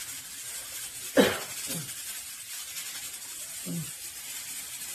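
Steam hissing from a stainless steel stovetop pressure cooker, with one sharp tap about a second in as the pressure regulator is tapped to vent excess pressure.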